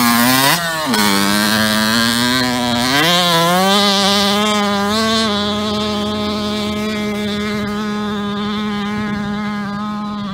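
Kawasaki KX65 dirt bike's 65cc two-stroke single revving hard as it rides past and pulls away, its pitch rising and dropping several times. It then holds a steady high note as it climbs a sand hill, growing slowly fainter.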